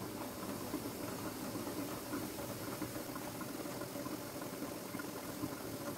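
Cherry jam boiling hard in a metal pot: a steady bubbling with many small pops. The jam is in its final boil, not yet at setting point.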